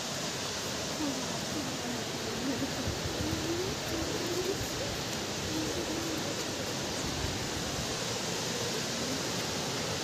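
Steady rush of a waterfall and the rocky stream below it, with faint distant voices in the first half.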